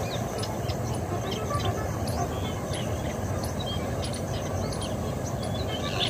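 Many short, high bird calls scattered throughout over a steady low rumble.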